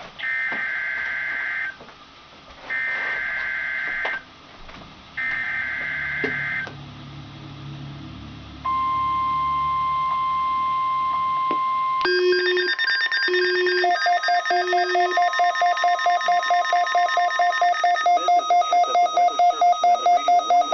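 Emergency Alert System weekly test tones over weather radio. First come three bursts of SAME header data tones, about a second apart, then the steady single-pitch weather-radio warning alarm tone for about three seconds. About twelve seconds in, this gives way to a jumble of electronic beeps and steady tones that pulse rapidly near the end.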